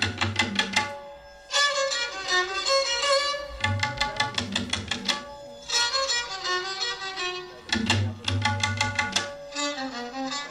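Indian instrumental music: a violin melody over tabla beats, played in short phrases with brief pauses between them.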